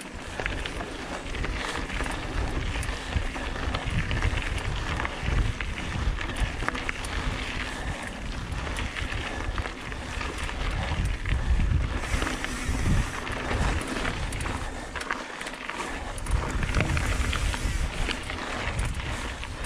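Singlespeed titanium hardtail mountain bike descending a rocky dirt trail: wind buffeting the microphone, tyres rolling over dirt and rock, and frequent knocks and rattles as the bike hits bumps.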